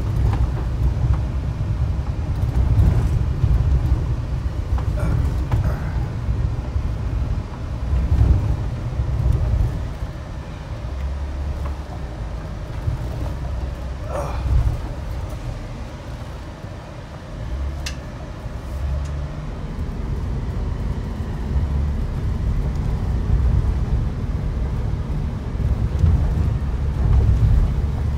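Low rumble of a vehicle driving slowly over a rough dirt and gravel road, heard from inside the cab, with a couple of brief knocks over bumps.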